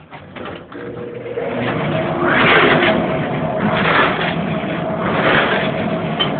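Clothes dryer starting up and running, with a steady hum and a whooshing swell about every second and a half as the drum turns.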